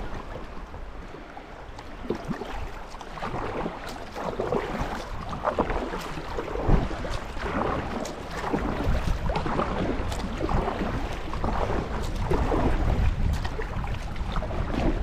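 Fast, high river water rushing and splashing against a kayak's hull and paddle, in a run of short splashes. Wind rumbles on the microphone, growing louder through the second half.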